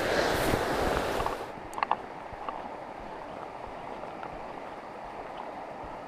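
Wind buffeting and rustling on the worn camera for about a second and a half, then the steady rush of a flowing river, with two brief high notes a little after that.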